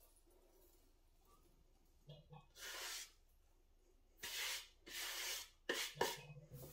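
A hand sweeping chopped rosemary needles across a wooden cutting board into a metal steamer basket: three short brushing swishes starting after about two seconds, with a small knock before them and a couple of light clicks near the end.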